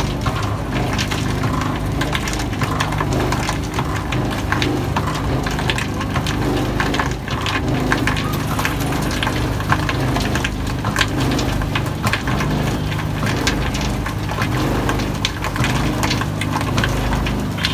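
Roller ice cream machine with its large drum spinning steadily: a continuous low mechanical hum, with dense irregular crackling and clicking over it.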